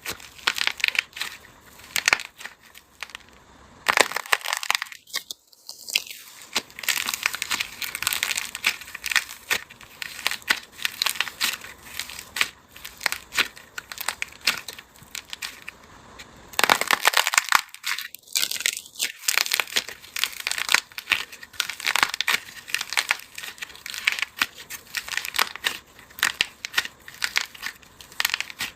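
Dry, brittle material being crushed: a dense, continuous run of crisp crackles and crunches.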